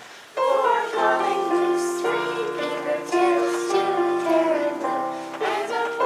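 Children singing a Christmas song with instrumental accompaniment; after a brief lull, a new phrase starts about a third of a second in.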